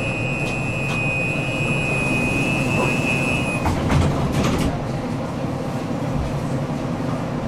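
Tram door-closing warning: a steady high beep that stops about three and a half seconds in, followed by the doors shutting with a few sharp knocks, over the low hum of the standing tram.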